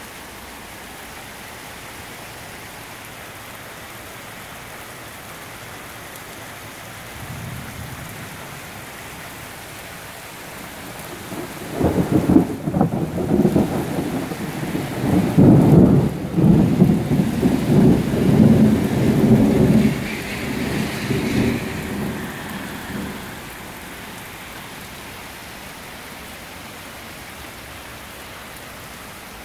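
Steady rain hissing throughout. A faint rumble of thunder comes about seven seconds in, then a long, loud peal of thunder starts about twelve seconds in, is loudest in the middle and dies away about ten seconds later.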